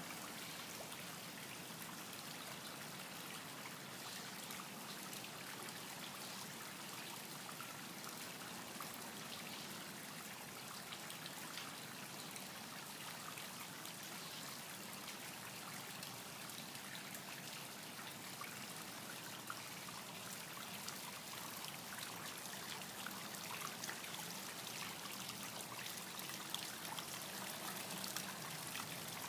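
Water trickling steadily in a small rock-edged garden pond, an even splashing hiss with fine drips.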